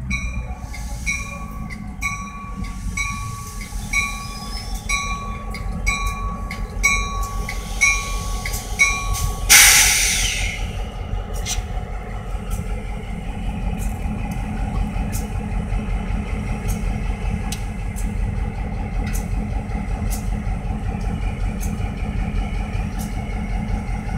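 EMD GP38-2 diesel locomotive rumbling at low speed as it creeps over a grade crossing. The crossing bell dings steadily, a bit more than once a second. About ten seconds in there is a short, loud hiss lasting about a second.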